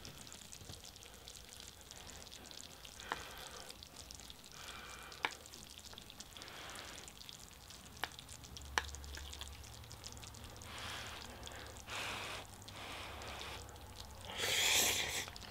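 Chopsticks clicking against a plate three times, then noodles slurped in short noisy bursts, the loudest near the end.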